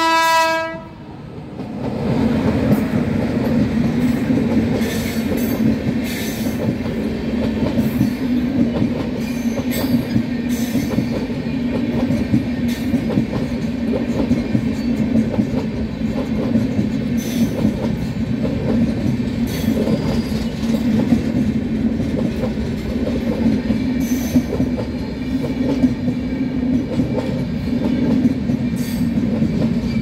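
A WAP-5 electric locomotive's horn sounds and cuts off within the first second. Then the express train runs past close by: a steady rumble from locomotive and coaches, with wheels clacking over the rail joints.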